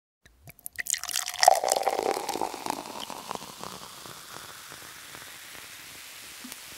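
Liquid pouring: a few sharp clicks, then a dense crackle that is loudest about a second and a half in. It fades into a steady hiss by about four seconds.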